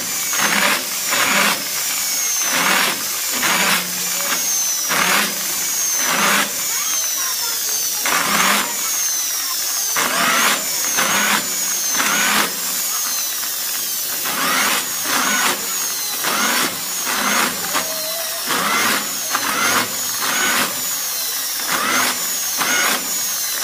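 Electric drill boring hole after hole in a sheet-metal amplifier case panel. Each hole is a short grinding cut with a high whine that falls in pitch, repeating about one to two times a second.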